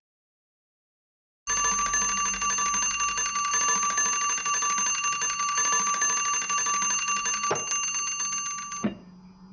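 A bell ringing fast and without a break, starting about a second and a half in and cutting off suddenly with a click near the end.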